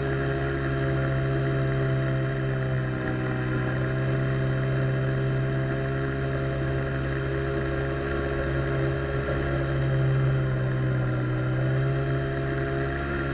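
Outboard jet motor driving an inflatable boat under way, running steadily, with a slight rise in pitch and level about ten seconds in.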